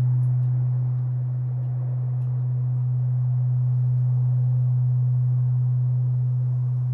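Large Japanese temple bell (bonshō) ringing on after a strike from its swinging wooden beam: one deep, steady hum that slowly fades and swells as it dies away. A fainter higher overtone dies out within the first second.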